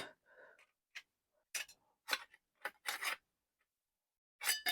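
Scattered sharp clicks and light metallic taps, about six over a few seconds, as a saw blade and the saw's metal parts are handled and fitted. The last tap, near the end, rings briefly.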